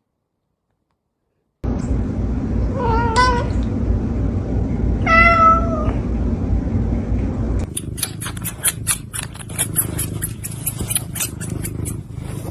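A domestic cat meowing twice over a steady low rumble. Then comes a rapid run of sharp clicks and rustling.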